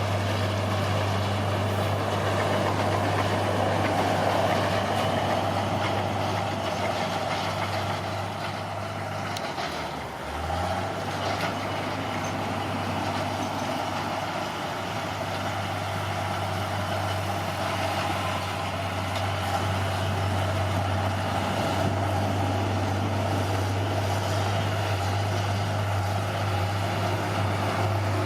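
Bulldozer's diesel engine running steadily under load. About ten seconds in it dips briefly, then picks back up.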